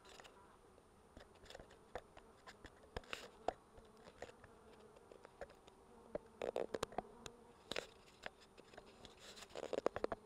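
Honey bees buzzing over an open hive as a steady low hum, broken by frequent sharp clicks and knocks that come in louder clusters about two-thirds of the way through and near the end.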